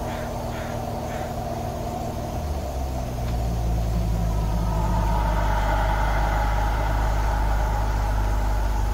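Hatchback car's engine running steadily, then its note rises and grows louder about three seconds in and holds there.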